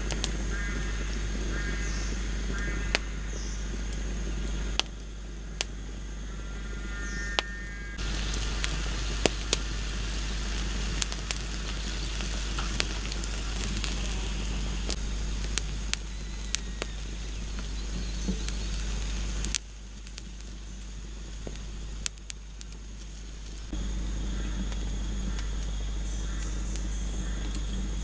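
Open wood fire crackling, with frequent sharp pops from the burning branches.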